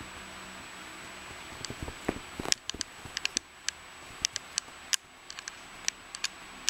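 A series of sharp, irregular clicks and ticks, mostly in the second half, with a few soft thuds just before them, over a faint steady hiss.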